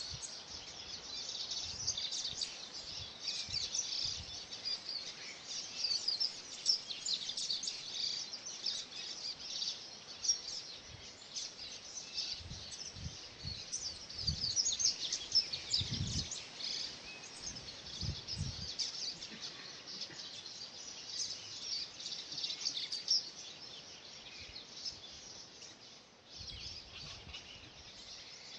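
A chorus of many Cerrado birds chirping and singing, their short high-pitched calls overlapping densely, with a few soft low thumps mid-way.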